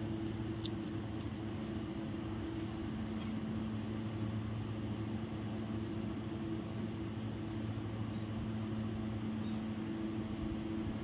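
Steady low hum with a constant pitched drone, typical of a motor or appliance running in the room, with a few light ticks in the first second or so.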